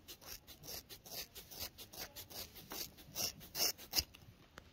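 Scissors snipping through a horse's braided mane: a quick, irregular run of short crisp cuts, several a second, with one sharper click near the end.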